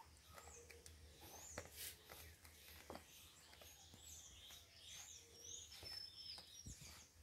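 Faint scuffling and soft scratches of kittens play-fighting on a fabric rug over a concrete floor, with short high bird chirps in the background.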